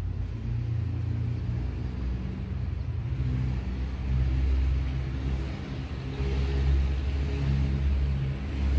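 Low, steady engine rumble that swells somewhat louder partway through.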